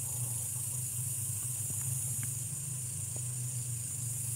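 A steady low hum under a constant high-pitched hiss of night insects.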